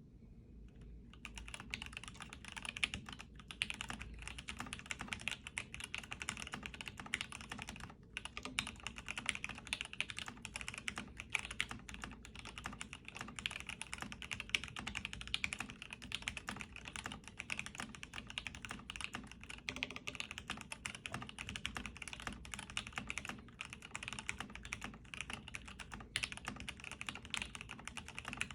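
Continuous fast typing on a Foxlab F80SE mechanical keyboard with Gateron Ink Black linear switches: a dense stream of keystrokes that starts about a second in, with a brief break about a quarter of the way through.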